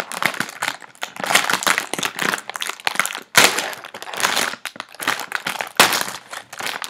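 Cotton Candy Oreo cookie packet crinkling and rustling as it is handled and opened, with a few sharper crackles.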